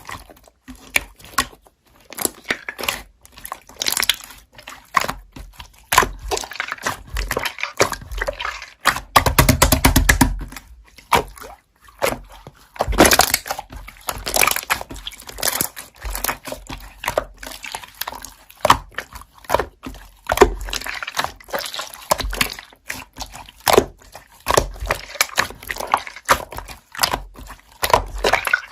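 Slime being squished and stretched by hand, giving a dense, irregular run of wet clicks and pops with longer squelching stretches.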